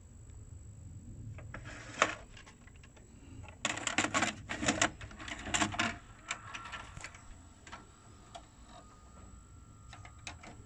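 Panasonic NV-HD630 VHS video cassette recorder's mechanism clicking and clunking in quick runs, then a faint steady whir from its motors, and two sharp button clicks near the end as play is pressed.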